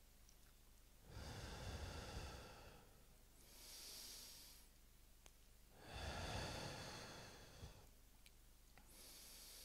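A man breathing slowly and deeply close to a handheld microphone, in a paced deep-breathing exercise: two long breaths with a low rumble of air on the microphone alternate with two shorter hissing breaths.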